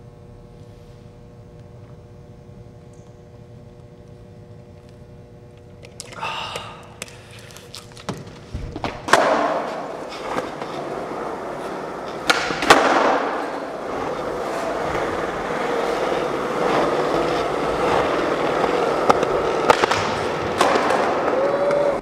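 A low steady hum, then skateboard wheels rolling on a smooth concrete floor, growing louder, with a few sharp clacks of the board about nine seconds in, midway and near the end.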